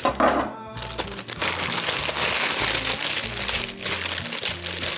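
A clear plastic bag crinkling loudly as a leafy vegetable is pulled out of it, over background music.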